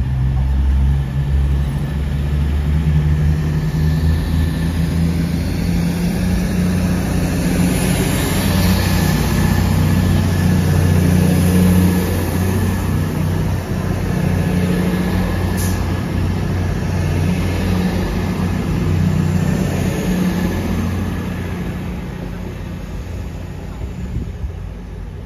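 Class 222 Meridian diesel multiple unit pulling out and accelerating past, its underfloor diesel engines running hard with a low drone whose pitch climbs as it picks up speed. Wheel and running noise swell as it passes, then fade as it draws away near the end.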